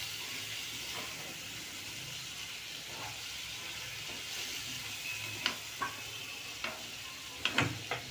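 Chopped onion, tomato and ginger sizzling in mustard oil in a kadhai while a metal spoon stirs them, being slowly fried on a low flame. In the second half the spoon scrapes and knocks against the pan several times.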